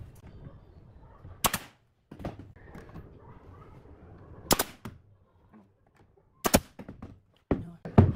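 Five sharp knocks on wood, spaced unevenly a few seconds apart, the last two close together near the end, with faint handling noise between them.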